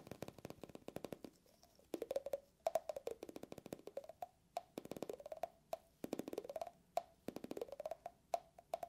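Fingertips tapping rapidly on a clear glass candle tumbler, with a hollow tone that repeatedly rises and falls in pitch.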